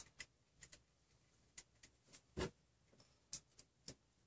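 Faint, irregular clicks and ticks of small hardware being handled: an M3 nut and bolt being fitted into the small gear on the stepper motor shaft and a screwdriver starting the bolt. The loudest click comes about halfway through.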